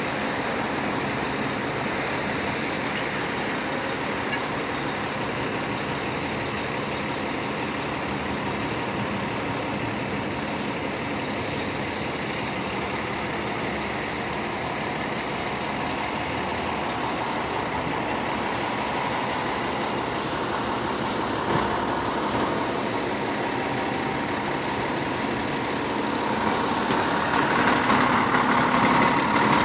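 Fire trucks' diesel engines idling in a steady drone, with short air-brake hisses about two-thirds of the way in. The engine noise grows louder near the end.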